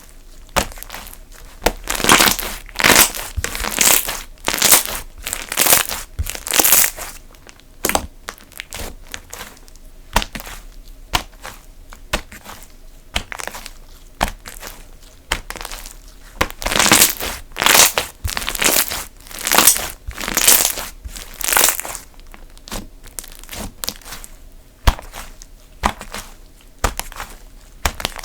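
Slime being squeezed and pressed by hand, giving crackly, crinkling squishes about once a second, with scattered sharp clicks and pops; the squeezes come thickest in two busy stretches.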